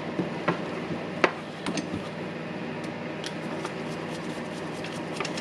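Small sharp clicks and taps of hand tools and small parts being handled while a wire is fitted to a power-tool switch terminal, a few scattered over a steady background.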